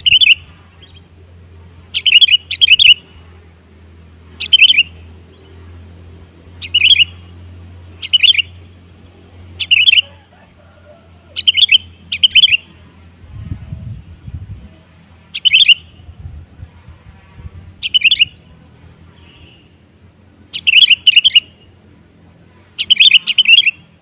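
Sooty-headed bulbul calling: short, loud phrases of two or three quick notes, repeated about a dozen times at intervals of one to two seconds.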